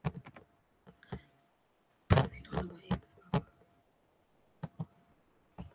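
Brief, faint fragments of a voice over an online call, with a few short clicks or knocks near the end.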